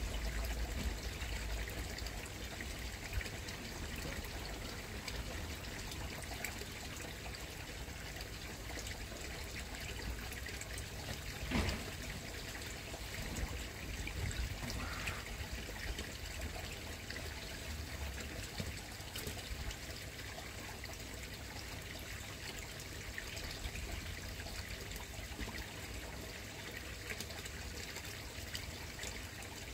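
Water trickling steadily into a koi pond, with a single sharp knock a little over a third of the way through.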